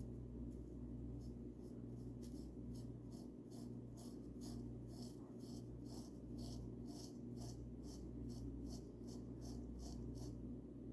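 Paint brush stroking paint onto a bird house: a steady run of quick, scratchy brush strokes, about three a second, that stops shortly before the end. A steady low hum lies underneath.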